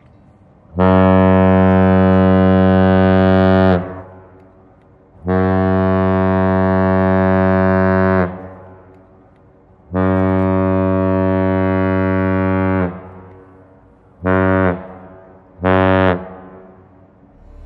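The lake freighter Joseph Block's deep ship's horn sounding three long blasts of about three seconds each, then two short ones: the three-long, two-short salute of Great Lakes ships. Each blast trails off in an echo.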